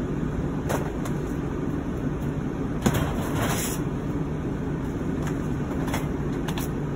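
Steady low background rumble with a faint hum. Over it, a few light knocks and clicks of items being handled and moved about in a box, the sharpest about three seconds in.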